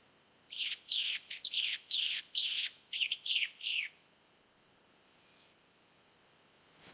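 A bird singing a quick run of about ten downward-sweeping whistled notes, then stopping, over a steady high-pitched insect buzz.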